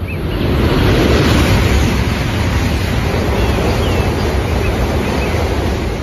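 High-speed train rushing through a station at speed: a loud roar of air and wheels that builds over the first second, holds, and eases near the end.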